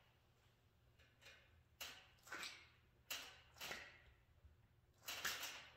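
About five short, faint swishes and rubs as a gloved hand presses and slides on the windshield glass and its rubber gasket, working the gasket lip to roll over the pinch weld and seat.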